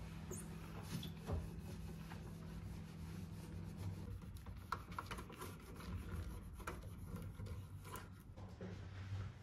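Damp cloth wiping the inside and door frame of a microwave oven by gloved hands: quiet rubbing with a few small knocks and scrapes, over a low steady hum that stops about four seconds in.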